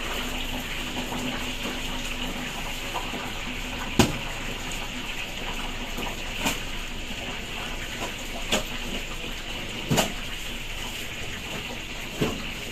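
Steady rushing hiss of a food-stall kitchen with five short, sharp knocks at uneven intervals; the loudest comes about four seconds in.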